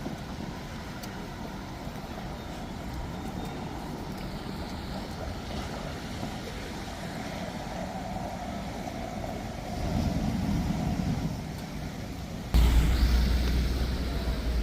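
City street traffic: vehicles passing on the road over a steady background hum. Near the end a loud low rumble sets in suddenly.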